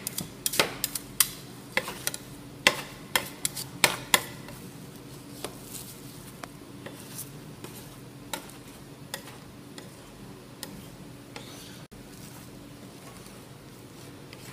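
Metal spatula chopping and scraping ice cream mix on the steel cold plate of a rolled ice cream machine. Rapid sharp clicks for about the first four seconds, then fewer, softer taps and scrapes as the mix is spread thin, over a steady low hum.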